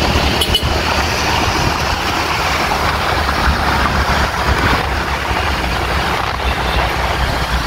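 Steady rush of wind and road noise from a moving motorcycle in traffic, with no horn or sudden event standing out.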